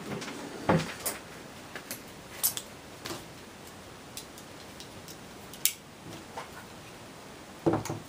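Scattered light clicks and knocks of small objects being handled, with a sharp click about two-thirds of the way in and a heavier knock near the end as hands take hold of the computer's plastic case.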